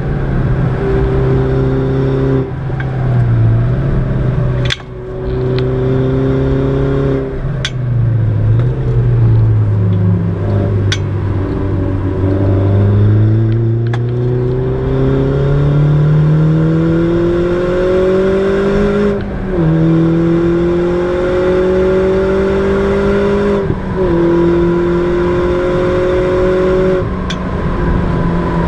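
Mini John Cooper Works R56's turbocharged 1.6-litre four-cylinder engine, heard from inside the cabin being driven hard. The revs rise and fall, with one long steady climb in the middle and sharp drops at the upshifts, one about two-thirds of the way through and another near the end. Several sharp cracks sound in the first half.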